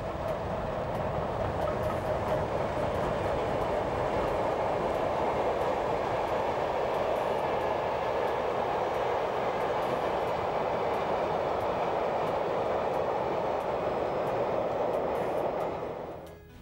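A train hauled by a Swiss 'Crocodile' electric locomotive rolling past. Its wheels and side-rod drive make the rumbling clatter typical of these locomotives, and then the coaches roll by. The sound fades out near the end.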